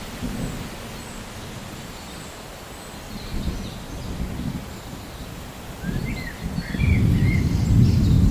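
Thunder rumbling low under a steady hiss of rain; the rumble swells loud about two-thirds of the way in. A few short bird chirps sound near the end.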